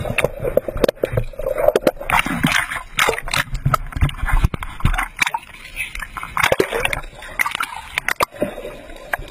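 Seawater sloshing and splashing around a ditched, sinking plane, with repeated knocks and clatter and brief bits of people's voices.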